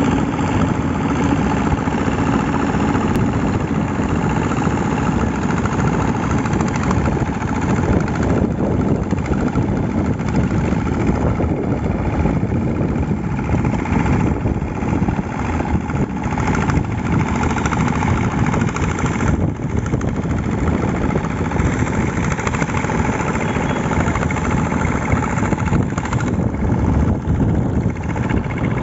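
Construction machinery's engine running steadily, without a break.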